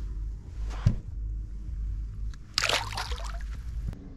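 Water splashing and sloshing, with a short loud burst of splashing about two and a half seconds in, over a steady low rumble and a single knock just under a second in.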